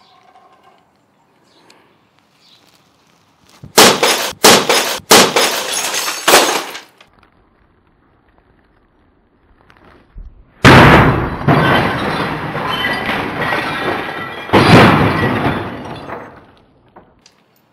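A chain-flail baseball bat smashing a plastic printer, breaking its plastic and the glass inside. About four seconds in comes a quick run of sharp cracking hits. From about ten and a half seconds there is a longer, loud crashing stretch, with a second hard hit near fifteen seconds.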